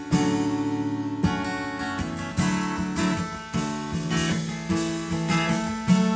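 Acoustic guitar strummed in chords, with a sharp accent roughly every second.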